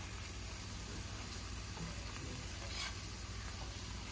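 Butter, onion and flour roux sizzling steadily in a skillet as it cooks, stirred with a silicone whisk that gives a few faint scrapes against the pan.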